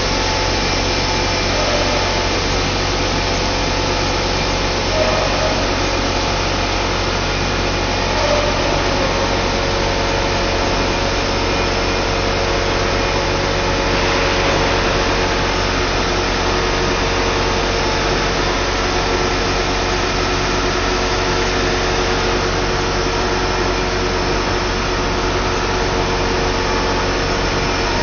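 SRB100A extrusion blow moulding machine running: a steady mechanical drone with a low hum and a few steady higher tones.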